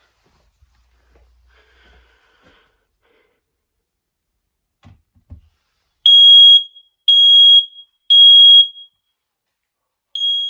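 Household smoke alarm sounding under test: loud, high-pitched beeps in a group of three, each about half a second long and about a second apart, then a pause and the next group starting near the end. This is the standard three-beep alarm pattern. A couple of faint taps come shortly before the first beep.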